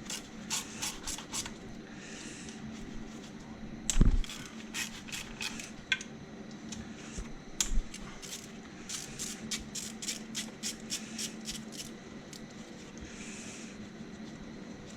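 Hand ratchet clicking in short runs as bolts on the Audi 2.6 V6's head covers are undone, with one loud knock about four seconds in.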